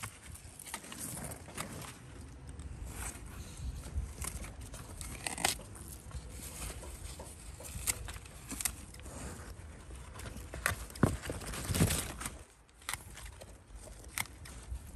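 Eggplant leaves rustling and crackling as they are pushed aside and stripped from the plants, with irregular sharp clicks. The loudest handling comes a little after the middle.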